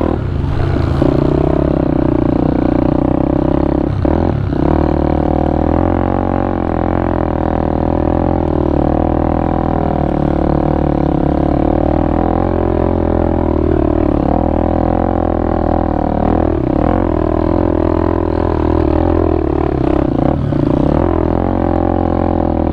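Pitster Pro 190 FSE pit bike's single-cylinder engine running under way, its pitch rising and falling gently with the throttle. A few brief knocks come through, about four seconds in and again later on.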